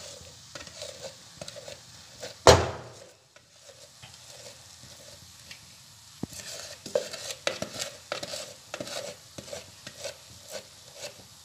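A spoon scraping and clicking against a container and pan as thick condensed milk is spooned out over grated coconut, with one sharp knock about two and a half seconds in and a quicker run of small clicks and scrapes in the second half.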